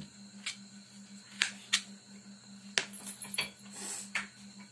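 Knife on a plastic cutting board: a few irregular sharp taps and clicks as potato strips are cut and handled, over a steady low hum.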